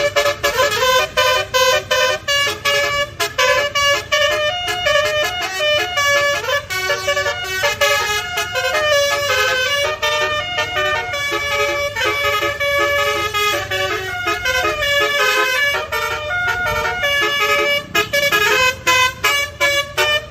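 Bus telolet horn, a set of pitched air horns, playing a fast tune of short notes that keep jumping in pitch, with brief gaps between phrases.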